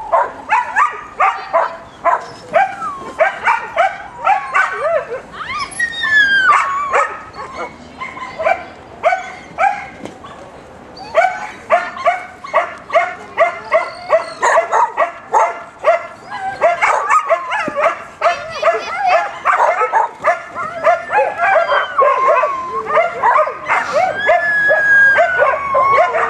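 A small dog yapping over and over in short, high-pitched barks, about two a second, with a lull of a few seconds partway through.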